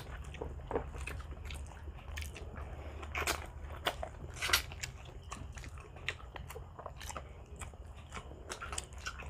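Close-miked chewing and biting of grilled barbecue meat, with wet mouth smacks and small crackly clicks at irregular intervals; the sharpest bites come about three and four and a half seconds in.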